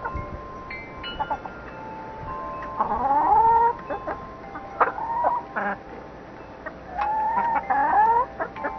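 Chickens clucking, with two drawn-out calls rising in pitch about three seconds in and again near the end. Wind chimes ring steadily behind them.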